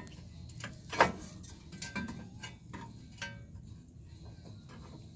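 Scattered metal clicks and knocks from a cut steel frame-horn section being held up and shifted against the car's frame rail for a test fit, the sharpest knock about a second in.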